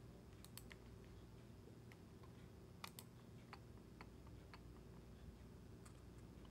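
Near silence with scattered faint clicks of a computer mouse, about eight in all, some in quick pairs.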